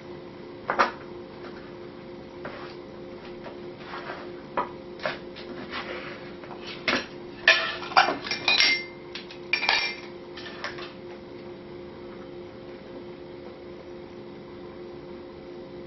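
Measuring cup and spoon clinking and knocking against a mixing bowl as cocoa powder is scooped and added: a scatter of sharp taps, busiest around the middle with a couple of short ringing clinks. The taps stop about two thirds of the way in, leaving only a steady low hum.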